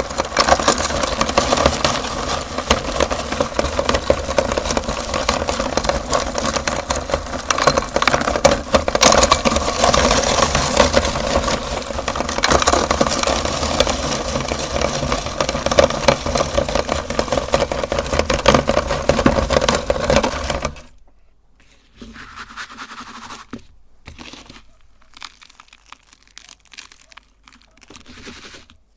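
Electric meat grinder running and crunching through hard lollipops, a steady motor hum under dense crackling. It cuts off suddenly about 21 seconds in, leaving only faint, scattered handling sounds.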